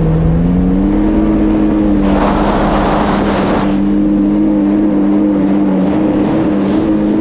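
Yamaha GP1800R SVHO jet ski's supercharged engine running steadily at cruising speed. Its pitch dips briefly at the start and picks back up within the first second. A rushing hiss of water or air comes in about two seconds in and lasts a second and a half.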